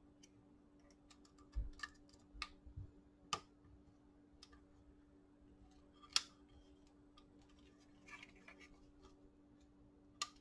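Scattered light clicks and taps of an Allen key and screws against the metal and plastic parts of a paintball marker as its grip frame is screwed on. The sharpest click comes about six seconds in, with a quick cluster of small ticks a couple of seconds later.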